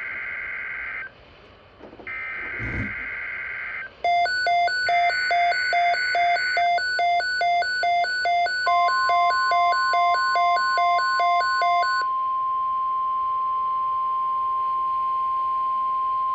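Emergency Alert System broadcast opening. Three short screeching digital bursts of the SAME header come first. A pulsing electronic beep follows, about two and a half beeps a second, and around the middle it is joined by the steady NOAA Weather Radio warning alert tone. The beeping stops near three-quarters through and the long steady tone carries on alone.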